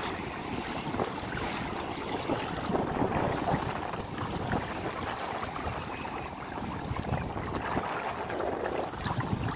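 Wind buffeting the microphone over small lapping waves, with the brushless electric motor of a Vector SR80 Pro RC speedboat running at a distance as it crosses the water.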